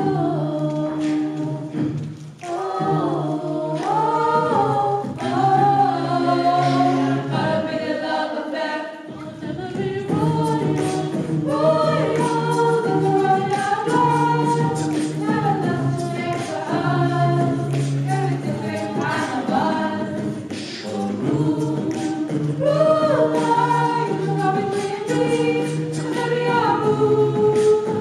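A vocal group singing in harmony without instruments, several voices holding and moving through chords together.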